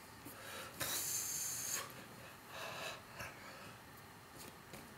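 A man breathing out noisily through his mouth, a breathy hiss lasting about a second starting just under a second in, then a shorter, softer breath, with a few faint clicks.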